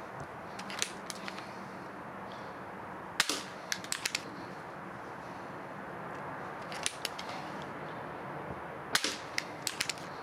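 Air pistol firing: sharp cracks, the two loudest about three seconds in and near the end, each followed by a few lighter clicks in quick succession, with weaker clusters of clicks near the start and about seven seconds in.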